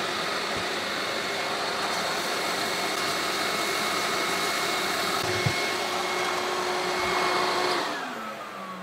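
Workshop vacuum cleaner running steadily, sucking sawdust through its hose via the blast gate. About eight seconds in it is switched off and its motor whine falls in pitch as it winds down.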